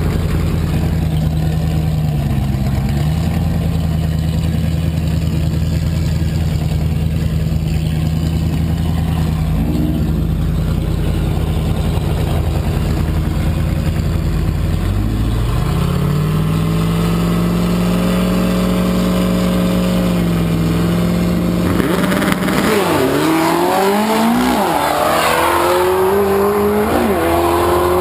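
Drag cars, a supercharged 350 Chevy V8 in a Datsun 260Z and a VW Beetle, idling at the start line, engine speed brought up and held from about halfway. Both launch about three quarters of the way in, revving hard through the gears as they pull away, the pitch climbing and dropping at each shift.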